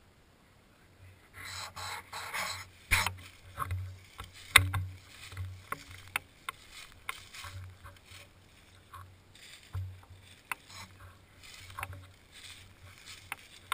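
Footsteps crunching and rustling through dry fallen leaves, with irregular sharp crackles and clicks, the loudest about four and a half seconds in, over dull thumps of the footfalls.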